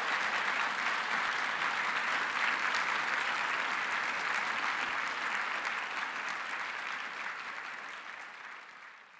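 Audience applauding steadily, the applause tapering off over the last few seconds.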